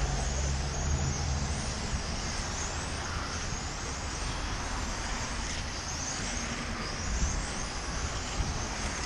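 Electric 1/10-scale RC touring cars racing on a track: a string of high motor-and-gear whines rising in pitch as cars accelerate one after another, over a steady bed of outdoor noise.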